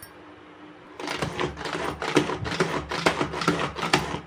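Hand-operated plunger chopper being pumped, starting about a second in: a fast run of clattering strokes, about four a second, as its spinning blades chop onion and garlic in the bowl.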